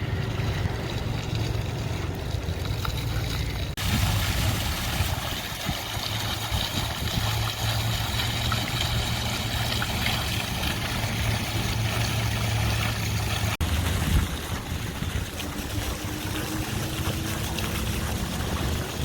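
Steady outdoor noise: a low rumble with an even hiss above it, changing abruptly about 4 seconds in and again near 14 seconds.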